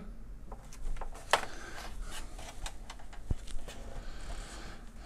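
Handling noise from a plastic LED ring light being turned over in the hands: light rubbing with scattered small clicks and knocks, and one sharper click about a second and a half in.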